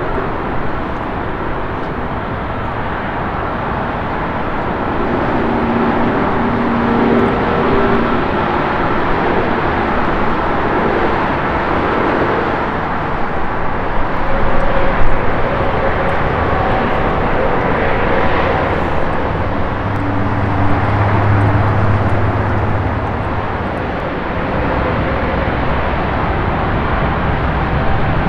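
Airbus A320neo's Pratt & Whitney PW1127G geared turbofan engines running at taxi power as the airliner rolls along the taxiway: a steady jet rumble and hiss with faint steady tones, swelling briefly about halfway through.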